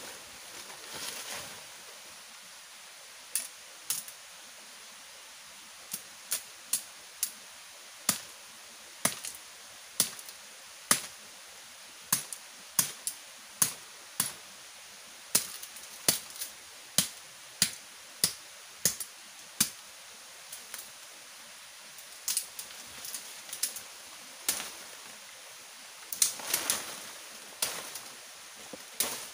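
A long series of sharp woody cracks, roughly one a second and more crowded in places, as undergrowth is chopped and broken, over a steady background hiss. Near the start and again near the end there is a longer rustling of leaves.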